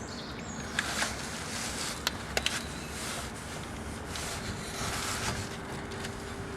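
Light metal clicks and scraping as copper-greased bolts are fitted and threaded in by hand to refit a brake disc, with a few sharp clinks about a second and two seconds in.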